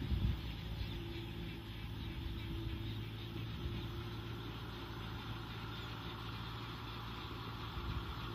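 Kubota M6040SU tractor's diesel engine running steadily under load as it pulls a rotavator through a flooded paddy.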